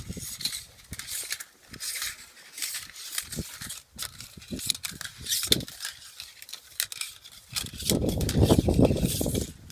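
Flat steel sewer rod being worked in a clogged drain pipe, scraping and clicking irregularly as it is fed and pulled. About eight seconds in, a louder dull rushing noise takes over.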